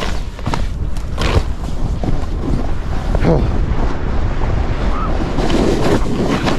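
Wind rushing over the microphone mixed with a snowboard's edges scraping over snow while riding downhill, with a few sharper scrapes as it turns.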